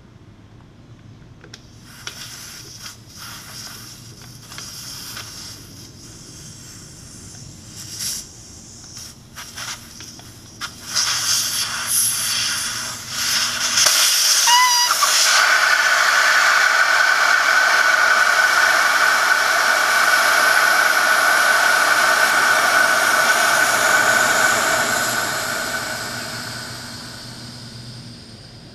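Air escaping from a motorcycle tire's valve stem as the valve core is unscrewed. First come short spurts of hiss. About halfway through, a brief rising whistle leads into a loud steady hiss with a tone in it as the core comes out. The hiss then fades away as the tire empties down to atmospheric pressure.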